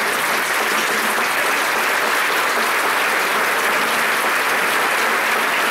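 Theatre audience applauding, a dense, steady clapping that holds at an even level.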